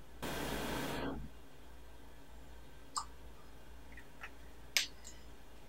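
A breathy hiss lasting about a second, then a few soft clicky lip smacks as freshly applied lipstick is pressed between the lips.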